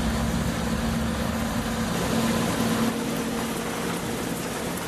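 Electric motor and gears of a radio-controlled toy construction vehicle running with a steady hum.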